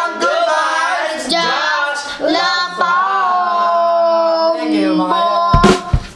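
Several voices, a woman's and a child's among them, singing together in a short sign-off chant, with a long held note about halfway through. A sharp break comes just before the end.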